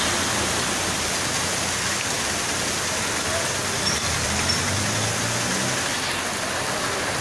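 Steady rain falling on a wet street, an even hiss. A faint low hum rises briefly about four to five seconds in.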